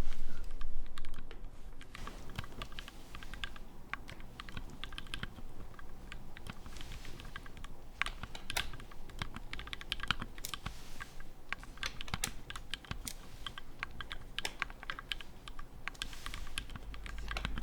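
Custom Tofu 60 mechanical keyboard with lubed Gateron Milky Yellow switches being typed on in a sound test: a quick, irregular run of key clacks, played back way too quiet.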